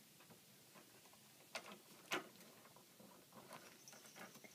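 Mostly near silence, with faint knocks and light rustling as a ferret rummages through a shelf of stored toys: two sharper clicks about a second and a half and two seconds in, then light scattered tapping in the second half.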